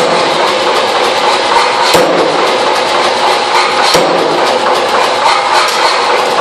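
Power hammer beating rapidly on a thin steel sheet held in tongs, a fast continuous clatter of blows, with heavier strikes about every two seconds. The blows are forging a hammered texture into the metal.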